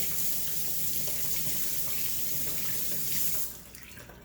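Kitchen sink faucet running in a steady stream as a potato is rinsed under it; the water shuts off about three and a half seconds in.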